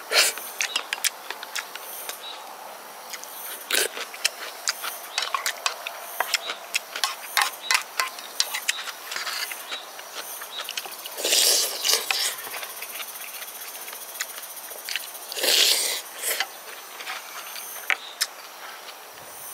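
Close-up eating sounds of rice soup: wet chewing and mouth clicks, with loud slurps of broth from a spoon, one at the start and two more later, each about a second long.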